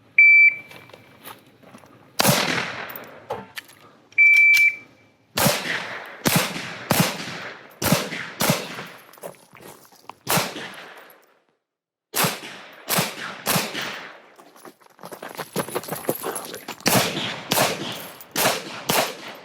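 Shot-timer beep, then handgun fire over an IDPA course: about sixteen sharp shots, mostly in quick pairs, with pauses of a second or two between strings as the shooter moves between cover positions. A second short beep sounds about four seconds in.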